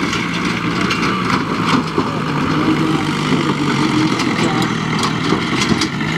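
Small home-built tractor's engine running at low revs while it tows a trailer, its pitch shifting slightly up and down.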